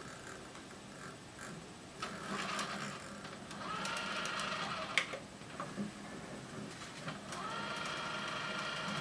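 JVC XL-MC222 200-disc CD changer's disc-changing mechanism running: a motor whirs about two seconds in, a sharp click comes halfway through, and the motor starts again near the end, its whine rising in pitch as it spins up.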